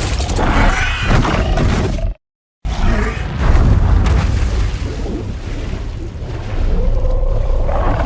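Drown Viper monster sound effects: deep rumbling roars and growls, broken by a brief silent cut about two seconds in. Near the end comes a drawn-out pitched call that bends upward.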